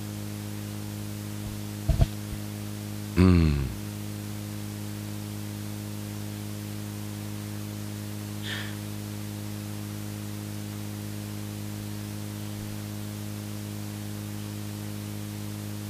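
Steady electrical hum with hiss from the handheld microphone's sound system. A short double thump comes about two seconds in, and a brief vocal sound from the man follows just after three seconds.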